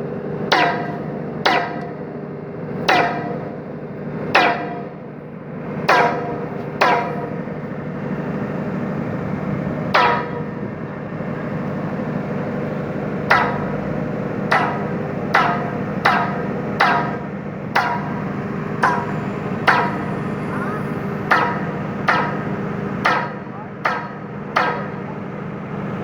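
A hammer striking steel pipe again and again at an irregular pace of about one blow a second, each blow ringing with a metallic tone, over a steady mechanical hum. The blows pause twice in the middle.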